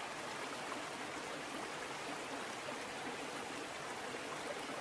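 A rocky mountain stream rushing over boulders: a steady, even rush of flowing water.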